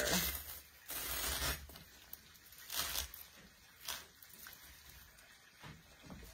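Greenery stems and branches rustling in several short bursts as they are handled and pushed into a decorative urn arrangement; the longest burst comes about a second in.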